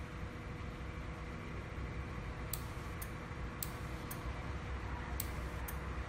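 Steady low hum and hiss with a faint steady tone, and three pairs of soft, high-pitched ticks, the two ticks of each pair about half a second apart, in the second half.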